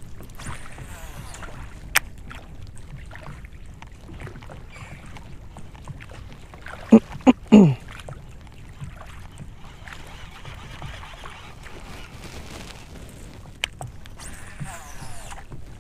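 Steady wind and water noise on a small open fishing boat, with a sharp click about two seconds in and another near the end. About seven seconds in, three short loud calls fall in pitch.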